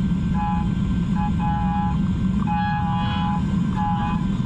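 Heller HF5500 CNC milling machine cutting under flood coolant at high feed: a steady low rumble of spindle and coolant, with a pitched cutting tone that comes and goes every half second or so as the end mill moves into and out of the cut.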